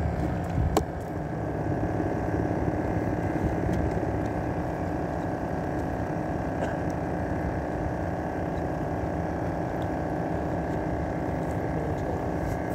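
A boat engine running steadily, a continuous even hum that holds one pitch. A couple of sharp knocks come in the first second.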